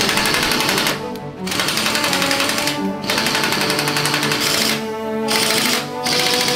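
Impact wrench hammering on the bolts of a tank's turret ring, in several bursts with short pauses between, undoing bolts that have been heated with a torch to free them. Background music plays under it.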